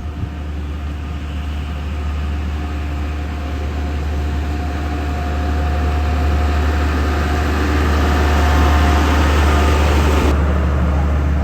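A vehicle engine running steadily, growing louder over the first eight seconds or so.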